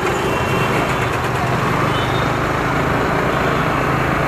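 A motorcycle's engine running steadily while riding in city traffic, mixed with wind and road noise and the engines of the scooters and motorcycles around it.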